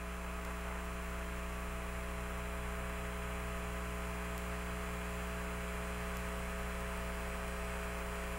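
Open radio channel between transmissions: a steady hum made of several fixed tones under an even hiss of static, with no change throughout.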